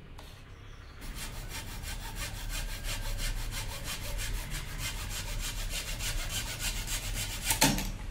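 Hand saw cutting teak wood in quick, evenly spaced strokes, starting about a second in, with one louder stroke near the end.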